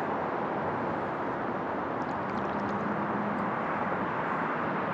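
Steady, even rushing noise of small lake waves washing against a concrete seawall, with a faint low hum underneath.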